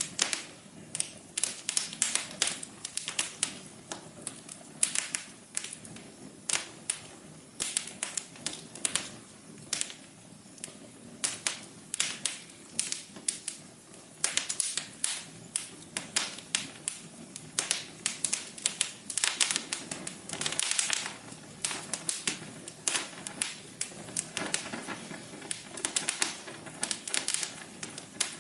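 Wood fire crackling: irregular sharp pops and snaps, several a second, over a soft steady hiss of burning.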